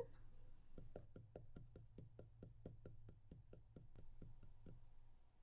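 Faint, quick cartoon footstep taps, about five a second, as the animated puffer fish scurries along on its little feet, stopping near the end.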